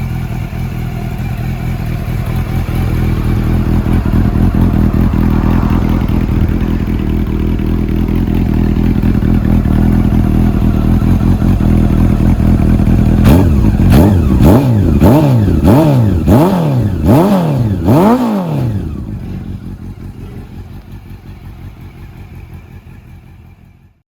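Honda CB400 Super Bol d'Or NC39's inline-four engine, fitted with an aftermarket BMS carbon silencer, idling steadily. About 13 seconds in it is given six or seven quick throttle blips, each revving up and dropping back. It then settles back to idle and fades out near the end.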